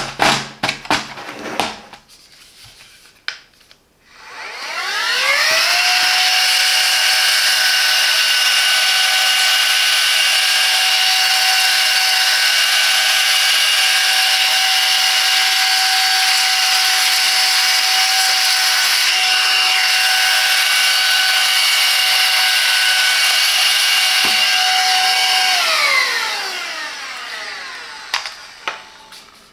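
Silvercrest SHM A1 cordless handheld vacuum running as a blower. Its motor switches on about four seconds in, with a rising whine that settles into a steady high whine over rushing air. Near the end it is switched off and winds down with a falling whine. A few handling clicks come before it starts.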